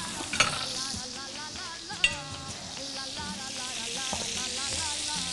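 Mushrooms and cherry tomatoes sizzling in oil in two frying pans, with background music. Two sharp clinks come about half a second in and again about two seconds in.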